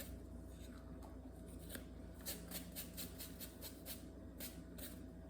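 Faint, scattered light clicks and taps of kitchen items being handled, about eight or nine of them, over a low steady hum.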